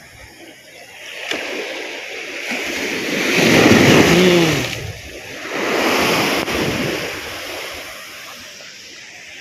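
Strong surf breaking on a pebbly shore. Waves crash and wash up, the biggest about four seconds in and another about six seconds in, with quieter wash between and after.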